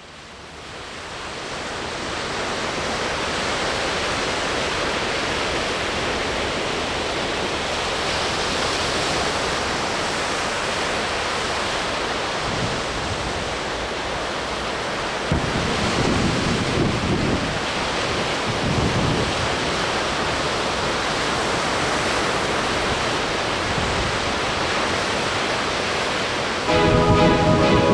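Ocean surf breaking on a sandy beach: a steady rush of waves that fades in at the start, with heavier low crashes about halfway through. Music comes in just before the end.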